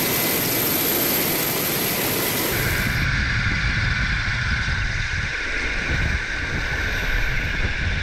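Helicopter rotor and engine noise heard from on board, a loud steady rush mixed with wind. About three seconds in it turns deeper and more buffeting.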